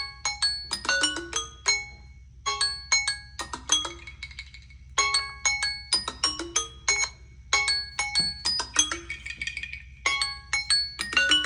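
Smartphone ringtone or alarm tone played through the phone's speaker: a short melody of bell-like mallet notes, like a marimba or glockenspiel, repeating about every two and a half seconds over a steady low hum.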